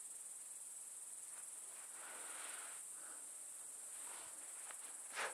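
Crickets chirring steadily in a high-pitched chorus, with a single short knock near the end.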